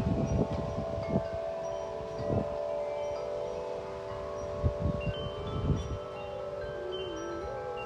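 Large tubular wind chimes, Corinthian Bells among them, ringing in the wind with many long overlapping tones. Gusts of wind buffet the microphone at the start and again about five seconds in.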